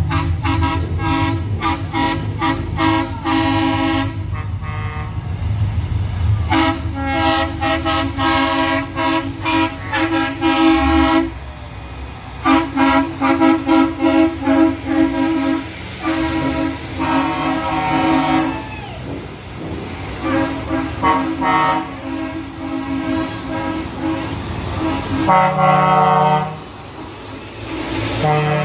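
Transporter trucks sounding their horns in a series of loud bursts of rapid toots with short gaps between, over the low rumble of diesel engines passing close by.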